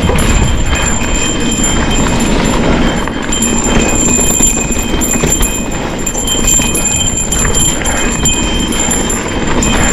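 Cowbell on a Santa Cruz Bronson mountain bike clanking without a break as the bike rattles down a rough trail, over a constant noise of tyres on the trail surface.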